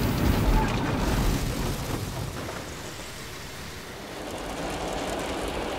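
Drive-through car wash spraying water over a car, heard from inside the cabin: a heavy rushing with a low rumble that eases to a quieter rush about two seconds in.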